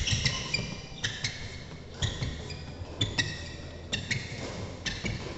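Sports shoes squeaking and thudding on a wooden indoor court during footwork drills, in a fairly even rhythm of about one or two steps a second.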